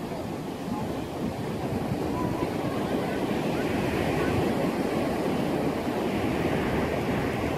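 Steady wash of surf on a sandy beach, mixed with wind on the microphone.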